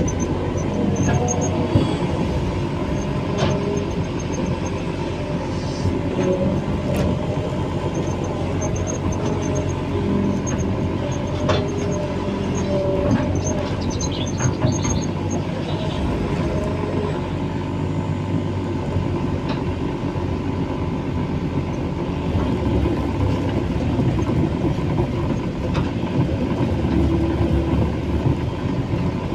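The diesel engine of a heavy earthmoving machine running steadily, with short, high metallic squeaks and clicks coming and going over the first half.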